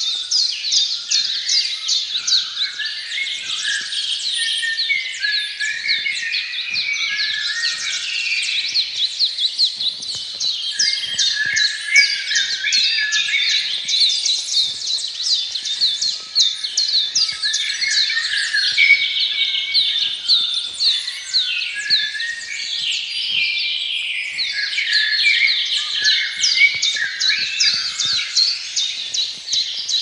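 Dense chorus of many songbirds singing at once, with fast runs of high repeated chirps over lower warbling phrases, going on without a break.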